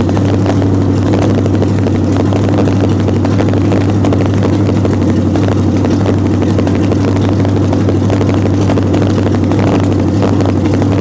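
1929 Chrysler engine running steadily at a fast idle. It keeps running although it should have shut off: the generator is still charging after the charging-bypass fuse was pulled.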